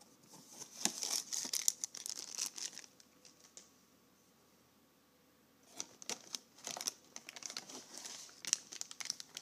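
Plastic packaging bag crinkling as a wrapped accessory is handled and pulled from a cardboard box. It comes in two bouts of crackling, with a quiet gap of about two seconds near the middle.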